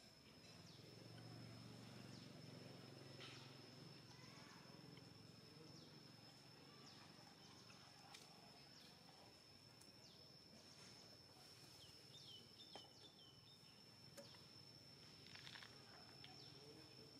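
Quiet outdoor ambience: a faint, steady, high-pitched insect drone, with scattered short bird chirps and a quick run of chirps about twelve seconds in.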